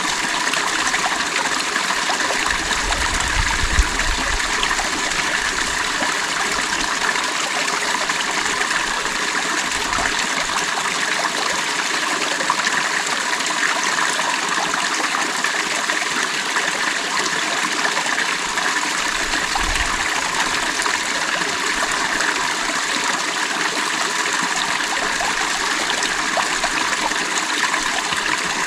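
Stream water running and splashing over rocks, a steady babbling rush, with a few brief low thumps or wind rumbles.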